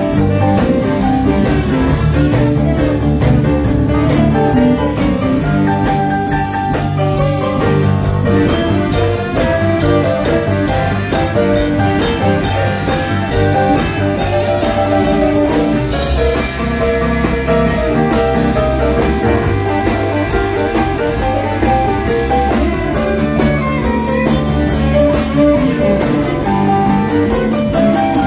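Live band playing an upbeat number with a steady drum beat: horn section with tenor saxophone, electric guitar, organ and keyboard, and a drum kit, with a cymbal-like crash about sixteen seconds in.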